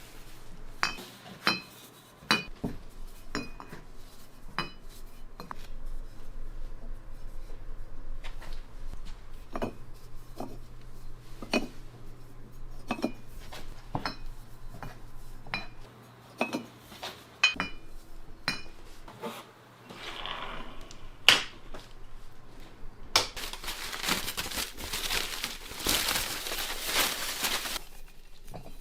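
Hard fired ceramic pieces clinking and knocking against each other or a hard surface, irregularly, about once a second, each clink with a short bright ring. Near the end, a few seconds of dense rough rubbing or rustling noise take over.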